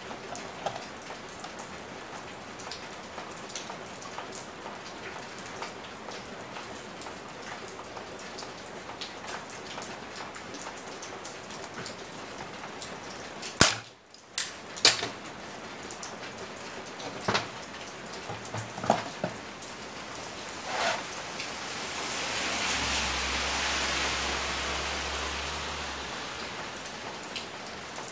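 Light clicks and metal knocks of parts being handled as a small electric water pump is put back together, with one sharp knock about halfway through. A steady hiss runs underneath, and a swell of noise with a low hum comes up for a few seconds near the end.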